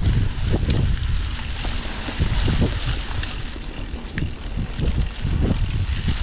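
Wind buffeting the camera microphone while riding a bicycle: irregular low rumbling gusts over a steady rushing hiss.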